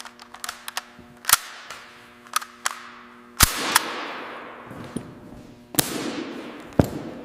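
AK-47 rifle firing single shots on a test range: four loud shots at irregular intervals, two of them followed by a long fading echo, with lighter clicks between.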